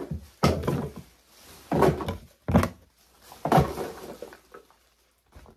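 Four knocks and thumps from items being handled and set down, as used-up product containers are put away and the next is searched out.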